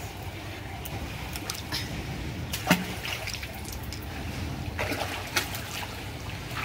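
Swimming-pool water splashing and trickling, with scattered small splashes and clicks and one louder sharp hit about two and a half seconds in.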